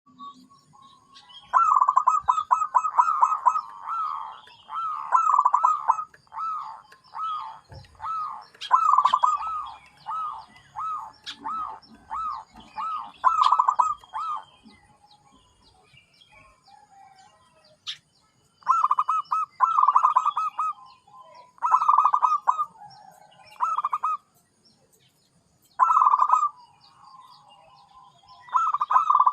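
Zebra dove (perkutut) cooing: a long run of rapid, rolling coo notes, then after a pause of a few seconds, shorter bursts of the same cooing every two or three seconds.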